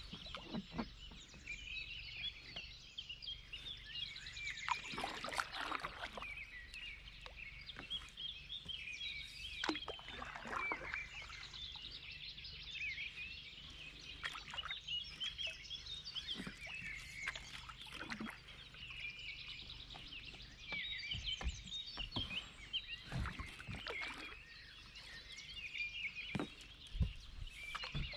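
Many songbirds singing together, with constant overlapping chirps and trills. Every few seconds a kayak paddle stroke splashes briefly in calm river water.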